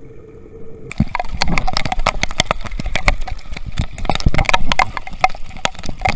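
Heavy rain, big drops striking hard and irregularly close to the microphone, many hits a second, starting suddenly about a second in.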